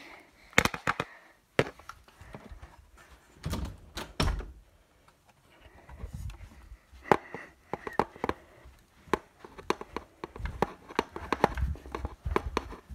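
Irregular knocks, thumps and soft rustling of handling and movement, as the phone is carried along with the toys while walking downstairs.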